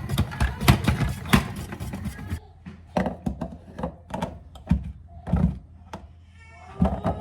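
A run of irregular knocks and thunks, dense and clattery at first and then sparser after an abrupt change, with a baby starting to cry near the end.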